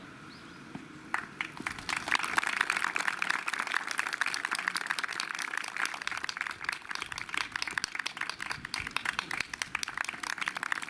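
Crowd applauding, beginning about a second in and keeping up a steady patter of many hands clapping.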